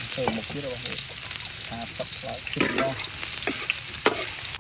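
Chopped garlic and shallots sizzling in hot oil in a steel wok, with a metal spatula stirring and scraping against the pan, giving a few sharp knocks in the second half.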